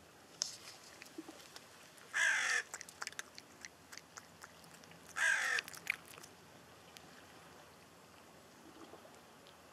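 A crow cawing twice, two harsh calls of about half a second each, some three seconds apart. Faint scattered clicks and ticks come in between.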